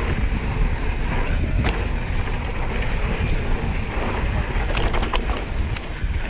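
Wind buffeting the microphone over the steady rolling of mountain bike tyres on a dusty dirt trail, with a few short rattles from the bike about five seconds in.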